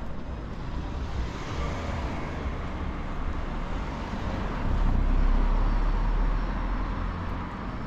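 Road traffic on a city street, with a vehicle passing close by and a low rumble that swells to its loudest about five to six seconds in.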